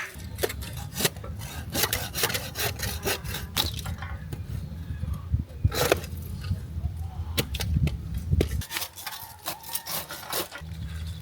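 Hand work on wood and stone: irregular knocking, scraping and rubbing. A steady low hum runs underneath, stops about eight and a half seconds in and returns near the end.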